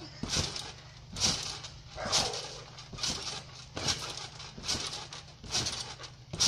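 Trampoline mat and springs thumping under a child's jumps, a regular bounce a little more than once a second.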